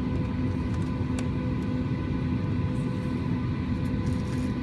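Cabin noise aboard a Boeing 737-800 on the ground: a steady rumble with a constant hum, and one faint click about a second in.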